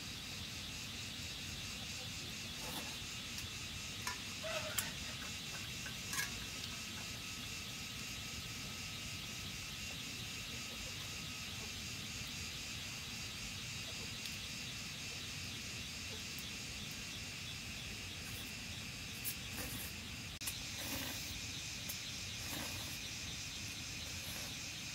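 Steady chorus of crickets or similar insects trilling high and fast, with a few light knocks and clicks scattered through it.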